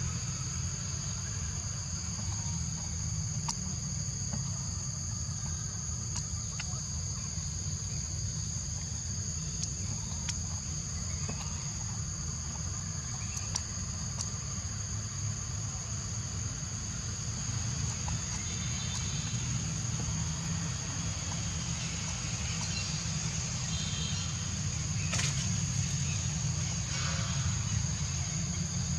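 Insects droning steadily on two constant high pitches over a low rumble of outdoor background noise, with a few faint chirps in the second half.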